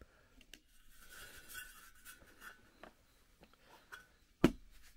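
Faint handling noise: light scraping and small clicks as a plate and a step drill bit are handled, with one sharp knock about four and a half seconds in.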